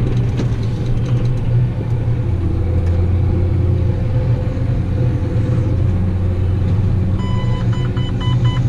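Farm machine engine running steadily with a deep, even drone. Near the end a short, repeating electronic beep starts up over it.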